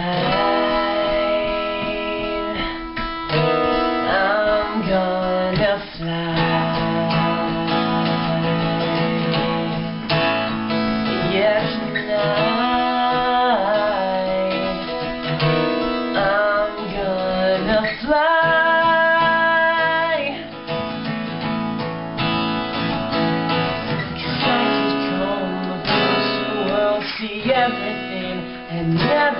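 Live acoustic pop song: strummed acoustic guitar with male voices singing the melody.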